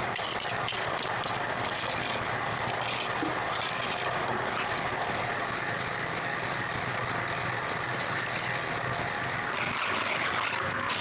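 Portable concrete mixer running steadily, its drum turning a batch of concrete with a continuous churning rattle.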